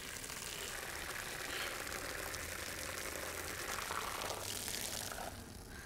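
Steady hissing background ambience with no distinct events.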